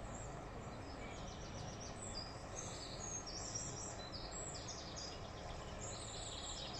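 Faint background of small birds chirping, many short high calls scattered throughout, over a low steady ambient hum.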